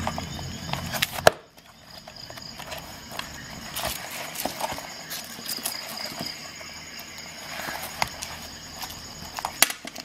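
Handling noises from a multi-tool, its metal bits and a nylon sheath: scattered small clicks and brief rustles of fabric. A sharp click just over a second in is the loudest.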